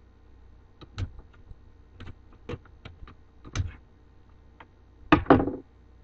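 Scattered light clicks and taps from a 3.5-inch IDE hard drive and its external enclosure parts being handled while shock mounts are fitted onto the drive. A louder pair of knocks comes about five seconds in.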